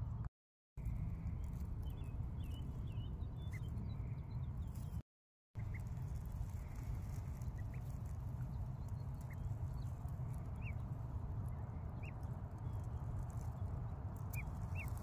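Ducklings peeping: short, high, rising calls scattered through, over a steady low rumble of wind on the microphone. The sound drops out completely twice for about half a second.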